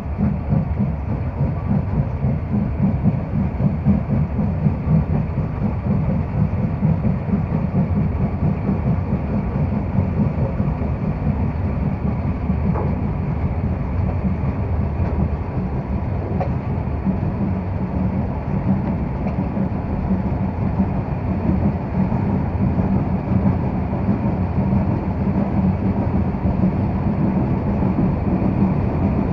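Ty42 steam locomotive running under steam, heard from its tender: a rapid, steady pulsing of exhaust beats mixed with wheel and rail noise.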